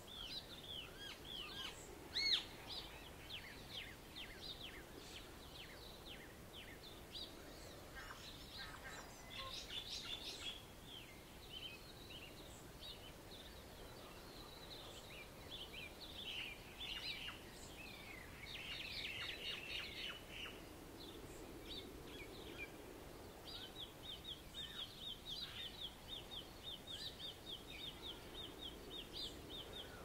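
Dawn chorus of small songbirds: overlapping quick chirps and whistled notes, with one sharper call a couple of seconds in and a fast run of repeated notes near the end, over a faint wash of waves.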